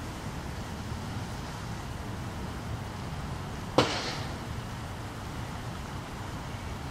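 Steady low outdoor rumble with one sharp snap a little under four seconds in.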